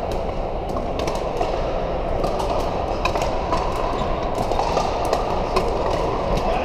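Pickleball paddles hitting plastic balls on several courts: many sharp, irregular pops over the steady din of a large indoor hall.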